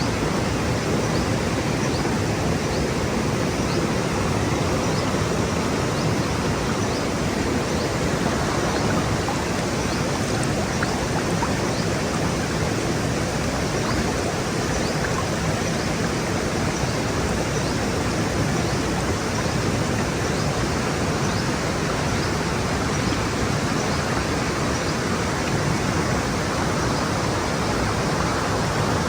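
Stream water flowing over rocks, a steady, unbroken rush.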